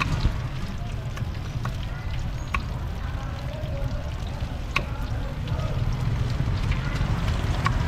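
Market ambience: faint background chatter and scattered sharp clicks and knocks over a steady low rumble.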